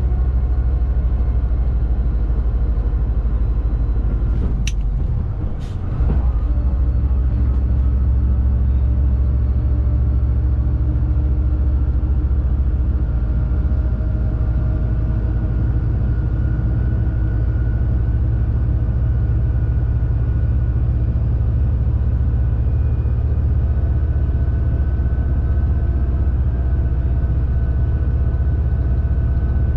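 Shacman X3000 heavy truck running fully loaded, its engine and road noise heard inside the cab as a steady low drone. Two sharp clicks and a brief dip in level come about five seconds in.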